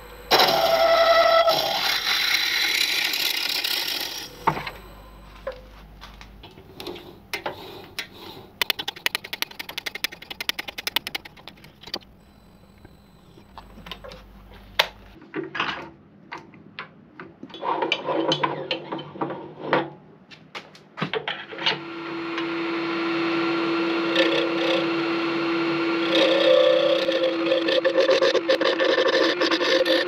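A drill bit in the tailstock chuck boring into a spinning stabilised masur birch blank for about four seconds. Then scattered clicks and knocks of the blank being reset in the metal lathe chuck. Over the last third the Laguna 18/36 lathe runs with a steady hum while a gouge cuts the blank, shavings scraping off.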